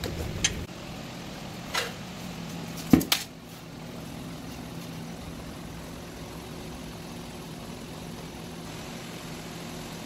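Hot forged steel plunged into a water quench tank with a brief low splash, then a few sharp metal clinks as the piece is handled. From about three and a half seconds in comes the steady hiss of an oxy-fuel torch flame heating the metal.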